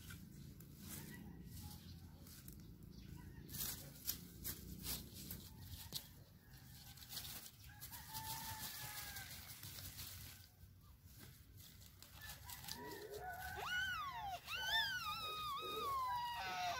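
Rooster crowing: a faint call about halfway through, then a louder crow near the end that rises and falls in pitch. A few scattered clicks and knocks in the first half.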